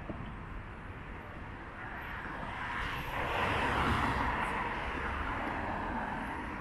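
City street traffic noise, with one passing vehicle swelling to a peak about three to four seconds in and then slowly fading.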